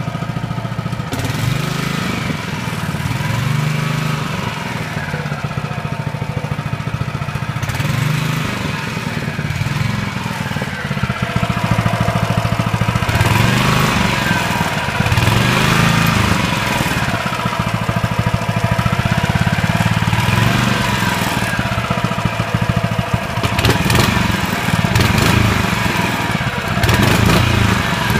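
Honda walk-behind lawn mower engine running at full throttle just after a start without choke, its speed rising and falling over and over rather than holding steady.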